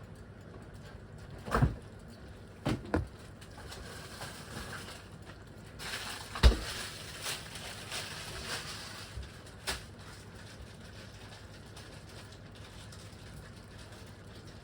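Scattered knocks and clinks of kitchen utensils and cookware, the loudest about six and a half seconds in, with a brief stretch of hiss around it.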